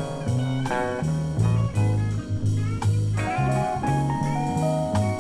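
Blues band playing an instrumental fill between sung lines: a guitar lick over a bass line and a steady drum beat.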